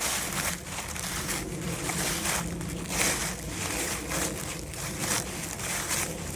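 Footsteps crunching through dry fallen leaves at a steady walking pace, about two crisp crunches a second.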